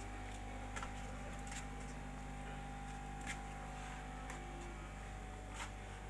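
Steady low electric hum of the pond's aeration air pump, with a few faint clicks.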